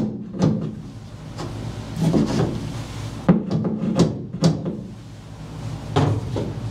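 Hammer tapping a wooden spacer block at a clamp to snug up the loose clamp: about ten uneven, short knocks.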